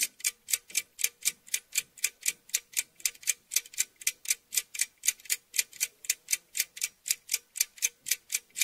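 Ticking sound effect: sharp, evenly spaced clock-like ticks, about four a second.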